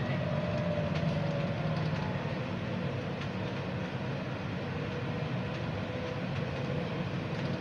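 Bukit Panjang LRT C801B rubber-tyred people-mover car running along its guideway, heard inside the car: a steady rumble from the tyres and running gear. A thin motor whine slides slightly lower over the first few seconds and then holds steady.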